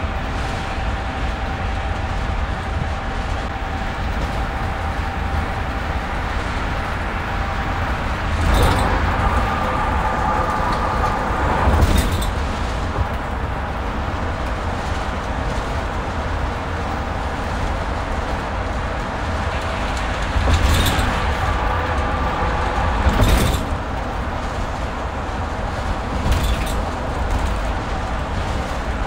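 Steady road and tyre noise inside a car cabin at highway speed, a low rumble throughout. It swells louder twice, with a few brief sharp thumps, about a third and two thirds of the way in.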